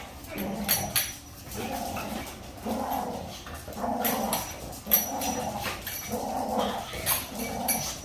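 Dog play-growling in repeated bursts, about one a second, with a few sharp clicks.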